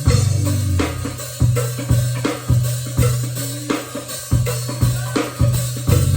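Live band music: a drum kit beat with sharp regular hits over a deep bass line.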